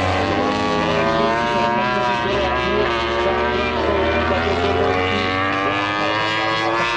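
Racing motorcycle engines at high revs, several overlapping, their pitch rising and falling as the bikes change gear and pass.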